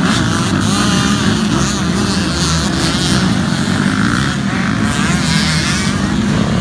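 Several motocross dirt bike engines revving as the bikes race past in a pack, a loud, continuous mix of engines.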